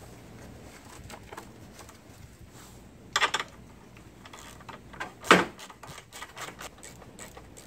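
Socket wrench loosening the nut on a battery hold-down J-bolt: light metal clicks, with two louder clanks of tool on metal about three and five seconds in and a quick run of ratchet ticks near the end.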